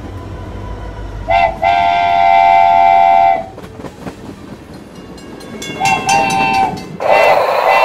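Train horn sounding as the train pulls away: a short toot and then a long blast of about two seconds, and a shorter toot about six seconds in, with light rail clatter between. Near the end a louder, noisier sound comes in.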